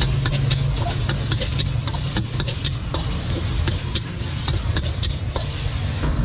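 Holy basil stir fry being tossed in a hot wok: a metal spatula clicking and scraping rapidly against the pan over a steady sizzling hiss, with a low hum underneath. The sizzling stops abruptly shortly before the end.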